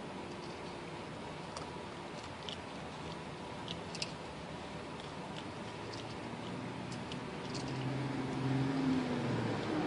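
Scattered faint crunching clicks of a raccoon eating dry cat food, over a steady background hiss. A low hum swells in near the end.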